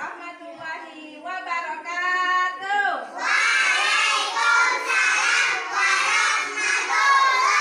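A single voice sings first, then a group of children joins in, singing together loudly from about three seconds in.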